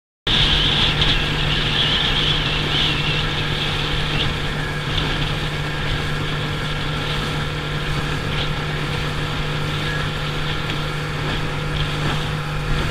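Motorboat engine running steadily under way, a constant low hum under an even hiss of wind and water rushing past.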